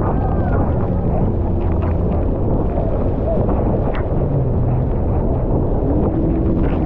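Steady loud roar of wind and rushing water on a GoPro microphone, with faint voices calling out.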